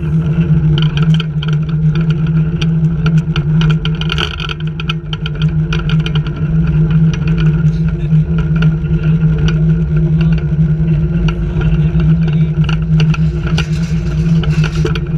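Steady mechanical hum of a motor, likely the flying fox rig's winch, with frequent short rattling clicks over it.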